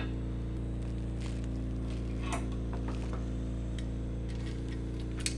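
Steady machine hum in a repair shop, with a few light clicks and taps of metal trombone parts and a hand tool being handled on a wooden workbench.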